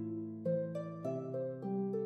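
Background music: a melody of plucked string notes, about three a second, each ringing on under the next.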